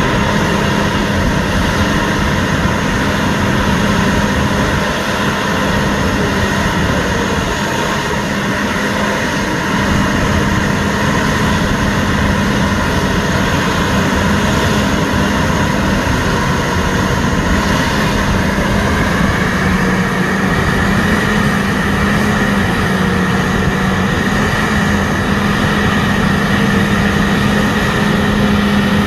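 EDGE VS420 low-speed, high-torque shredder running steadily while shredding green organic and wood waste: a continuous machine drone with a steady low hum. A higher tone in the drone shifts slightly upward about two-thirds of the way through.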